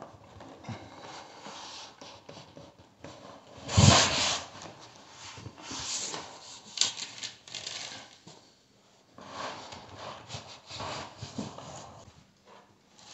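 Handling noise from fitting self-adhesive flexible plastic quarter round: irregular rustling and rubbing as the backing liner is peeled off and the trim is pressed along the floor edge by hand, with one louder thump about four seconds in.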